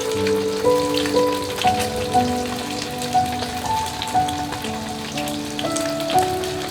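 Steady rain with many small drops pattering, under gentle background music of held notes that change about every half second.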